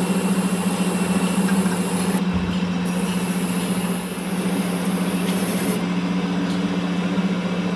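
A machine running with a steady low hum, dipping briefly about four seconds in.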